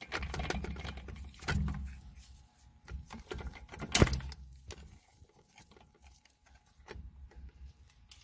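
Hand tools and metal parts being handled under a car: clattering for the first two seconds, a sharp knock about four seconds in, then scattered faint clicks.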